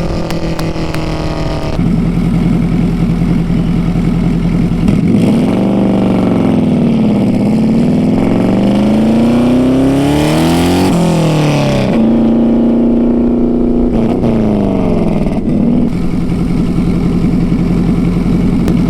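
Turbocharged car's engine and exhaust running loud under way, the engine note holding steady, then rising and falling several times as it revs, with a burst of hiss about ten seconds in.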